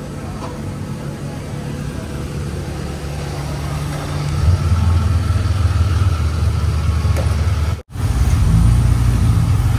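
Holden Commodore VP car engine running with a steady low hum, growing louder about four and a half seconds in. The sound drops out sharply for an instant near eight seconds.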